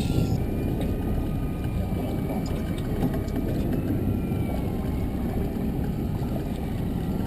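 Trolling boat's motor running steadily under a heavy rush of wind and water noise, with a faint high whine.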